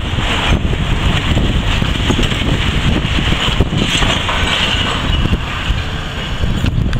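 Demolition excavator at work pulling down a building: its diesel engine running under load while masonry and debris crunch and fall, with wind buffeting the microphone.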